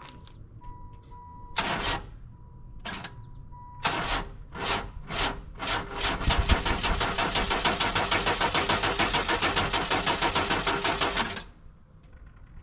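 A car's warning chime beeping, then the sedan's engine being started with the key, its throttle propped wide open and its exhaust cut off. A few separate bursts come about two and three seconds in, then rapid, even pulses from about four seconds that stop suddenly near the end.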